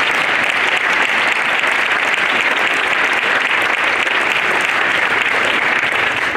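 An audience of schoolchildren and parents clapping steadily, fading away just after the end.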